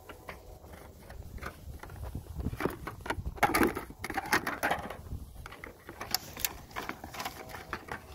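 Plastic plant pots clattering and scraping as a puppy noses and chews at them, an irregular run of clicks and rattles that is loudest in the middle.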